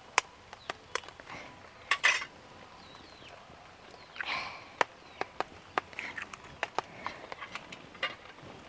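Hen's eggs being cracked on a metal kadai: a series of sharp taps and clicks of shell on metal, with short scraping sounds as the shells are pulled apart.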